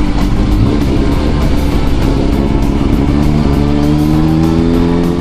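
Kawasaki ZRX400 inline-four motorcycle engine running on the move, its pitch rising steadily over the last two seconds as the bike accelerates.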